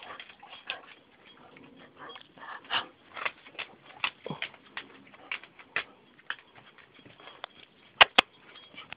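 A small dog nosing about right at the microphone: irregular soft snuffles and short ticks, with two sharp knocks about eight seconds in.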